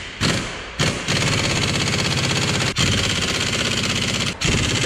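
Pneumatic impact wrench hammering in long bursts with brief pauses between them, working a bolt at the rear wheel hub during suspension removal.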